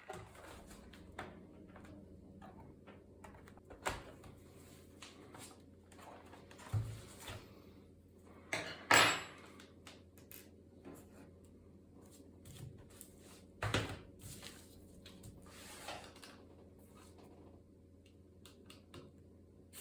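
Scattered clicks and knocks of laptop parts and tools being handled on a work surface during disassembly or reassembly, the loudest knock about nine seconds in, over a faint steady hum.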